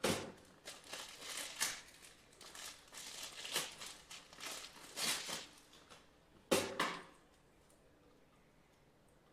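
Handling noise: irregular crinkling and rustling, with two sharp clicks about six and a half seconds in, after which the handling stops.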